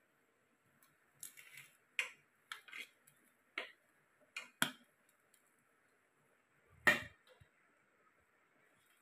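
Serving spoon scraping and knocking against the inside of a pressure cooker while cooked biryani rice is turned over and scooped. It comes as a run of irregular short scrapes and clicks, the loudest about seven seconds in.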